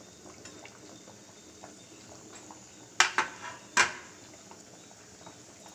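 Two sharp metallic clanks against a metal cooking pot, a little under a second apart, as a utensil knocks on the pot while dried fish is added to a simmering curry.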